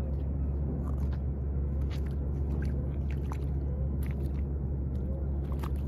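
A steady low rumble with scattered faint clicks and ticks.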